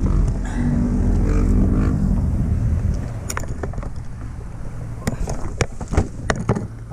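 A motor vehicle engine running, its note easing off and getting quieter about three seconds in, followed by a scattering of sharp clicks and knocks.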